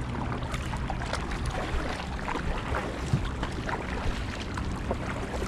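Kayak paddles dipping into the water, with many small splashes and drips over a steady low rumble.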